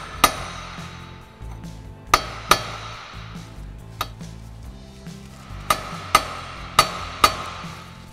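Hammer blows on a large steel punch driven against the rust-seized front drive shaft at its U-joint: about eight sharp metallic strikes, mostly in pairs, each with a short ring.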